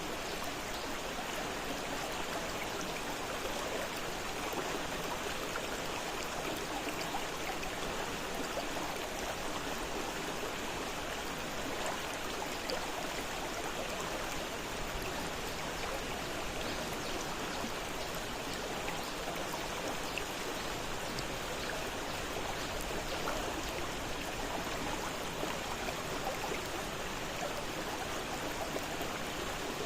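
Fast-flowing river water rushing and splashing, a steady, unbroken sound.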